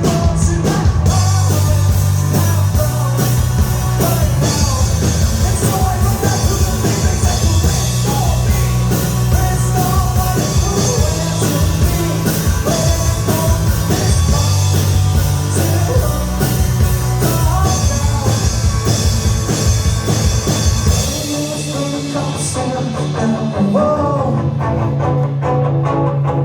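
Live rock band playing a song: a singer over electric guitar, bass and drums. About 21 seconds in the deep bass drops out and the band thins for a few seconds before the low end returns near the end.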